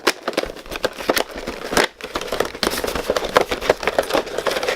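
Toy packaging being opened and handled: cardboard and plastic crinkling and crackling, a dense run of sharp clicks and rustles.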